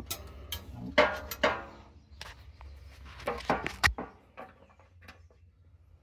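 Irregular metallic clinks and knocks of a socket wrench and fender hardware being handled while a motorcycle's rear fender is shifted to line up its bolt holes, with a few short ringing clinks.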